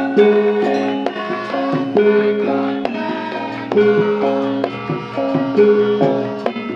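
Live instrumental music: struck, ringing tuned percussion and drum hits playing a short phrase that repeats about every second and three quarters, with no singing.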